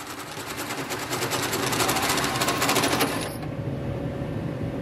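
Cordless drill driving a hole saw through a steel frame rail, cutting with a fast, rhythmic chatter; the hole saw is bent and catches on one side. The chatter stops abruptly about three seconds in, and a quieter steady running sound carries on.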